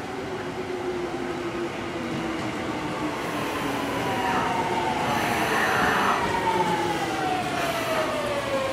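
Seibu 6000 series electric train pulling into a station and slowing. Its motor whine falls steadily in pitch over the running noise of wheels on rail, growing louder as the cars come alongside, with a brief harsher rush of wheel noise a little past the middle.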